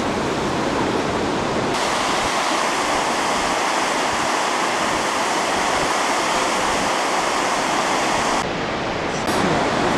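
Steady, even roar of water pouring over the Chaudière Falls. The sound turns brighter about two seconds in and duller near the end.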